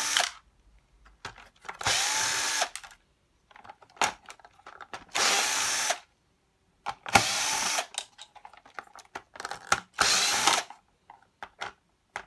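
Cordless drill-driver undoing screws in short runs: four bursts of under a second each, spaced two to three seconds apart, the motor whine rising as it spins up and dropping as it stops. Light clicks of handling between the bursts.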